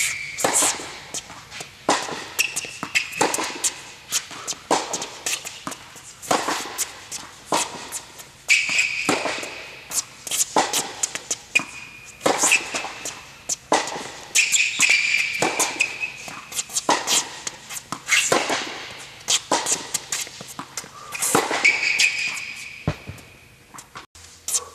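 Tennis rally on an indoor hard court: racket strikes and ball bounces about once a second, each with a short echo off the hall. Now and then a sneaker squeaks sharply on the court surface as the player sets up for a shot.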